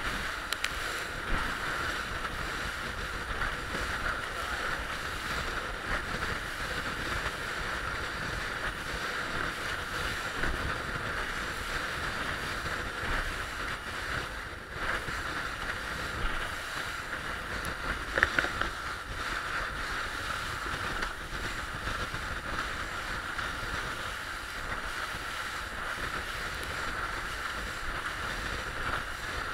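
Motorboat under way at sea: a steady rush of water along the hull and wind on the microphone, over the hum of the boat's motor. There is a brief louder moment about two-thirds of the way through.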